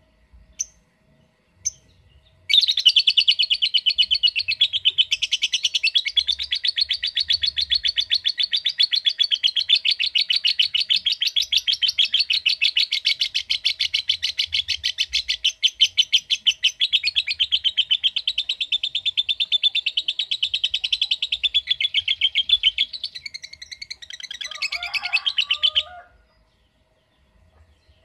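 Lovebird giving its long, rapid chattering song: a few short chirps, then a fast, unbroken run of high notes for over twenty seconds that stops abruptly near the end.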